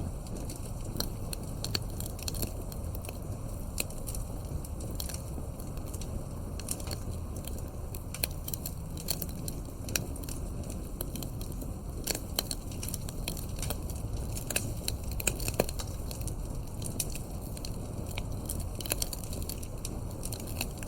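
Wood fire crackling: a steady low rumble of burning logs under frequent, irregular sharp pops and snaps.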